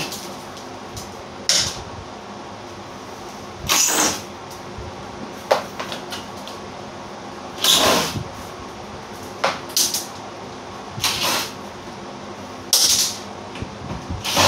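Cordless impact driver running in short bursts, driving self-tapping screws up into ceiling panels, a burst every couple of seconds. A steady hum runs underneath.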